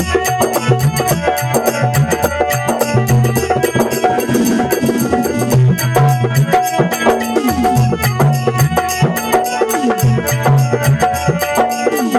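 Instrumental interlude of a Rajasthani folk bhajan: a hand drum keeps a fast, steady rhythm under a melody line with sliding notes.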